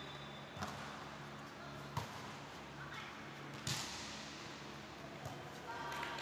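Volleyball struck four times in a rally: short sharp hits about a second and a half apart, the one about three and a half seconds in the loudest.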